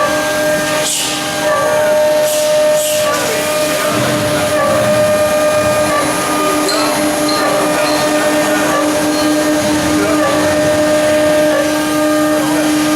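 A CNC router's 9 kW HQD spindle runs at a constant high speed, giving a steady whine, with cutting noise underneath. Short hissing bursts come about a second in and again around three seconds in.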